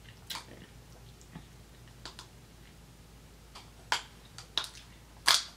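Plastic straw being worked up and down in a milkshake cup's plastic lid, giving a handful of short sharp clicks and squeaks, the loudest near the end.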